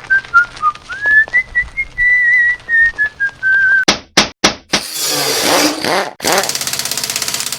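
A person whistling a wandering tune. Just before halfway it gives way to a few sharp clicks, then loud rushing noise, pulsing rapidly near the end.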